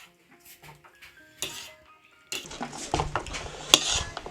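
Quiet background music for about two seconds, then a sudden clatter of dishes and cutlery, with many sharp clinks and knocks.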